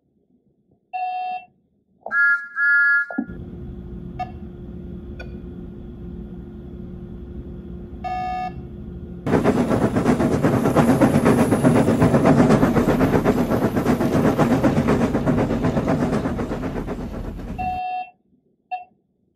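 Edited-in sound effects: short electronic beeps, then a steady low hum with a held tone from about three seconds in. About nine seconds in a loud rushing noise takes over, swells and cuts off suddenly near the end, followed by a few more beeps.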